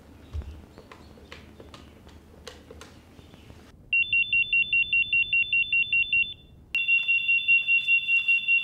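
Telephone ringing with a rapid, warbling electronic ring: one ring of about two and a half seconds starting about four seconds in, a short pause, then a second ring running on to the end. Before it, only quiet room sound with faint clicks.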